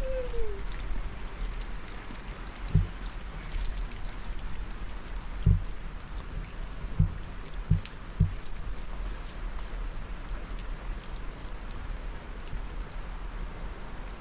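Steady rain falling, with a few dull low thuds scattered through the middle.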